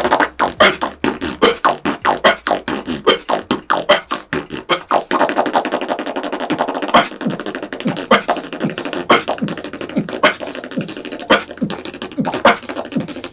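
Beatboxing: an inward lip roll combined with cough snares, each cough snare pushing out the air that the lip roll draws in so the rhythm can run on without a breath. There are quick strokes for the first few seconds and again near the end, and through the middle a steady lip-roll buzz cut by a cough snare about once a second.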